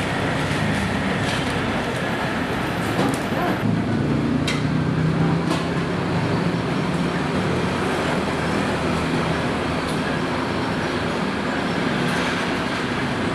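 Steady mechanical rumble with a low hum, and a few light clicks over it.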